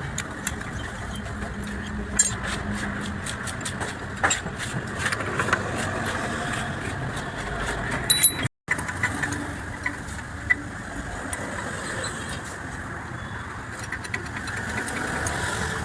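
Steady vehicle engine and traffic noise, with a run of sharp metallic clicks and clinks for several seconds. The sound drops out completely for a moment just past halfway.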